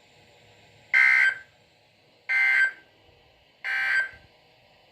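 NOAA Weather Radio SAME end-of-message data bursts: three short, identical two-tone digital chirps a little over a second apart, signalling that the warning message has ended.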